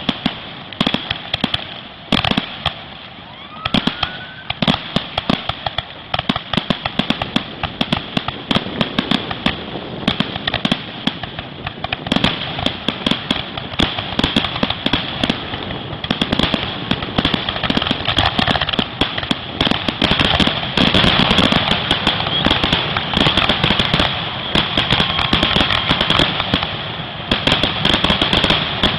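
Aerial fireworks display: shell bursts banging one after another with crackle, growing denser from about halfway and turning into a nearly continuous barrage towards the end, the finale of the show, which stops abruptly.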